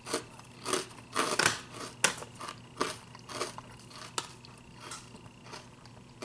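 Close-up crunchy chewing of a mouthful of crisp salad lettuce: irregular crunches, loudest in the first two seconds and growing sparser as the bite is chewed down. One sharp click about two seconds in.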